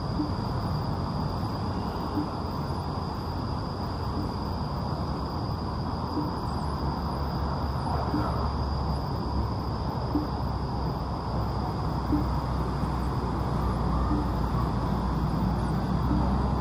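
Outdoor ambience dominated by a steady rumble of road traffic, growing a little louder near the end, with a thin steady high-pitched tone running through it.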